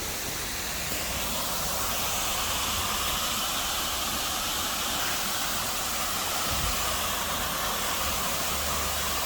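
Waterfall pouring over a rock wall into a creek: a steady, even rush of falling water.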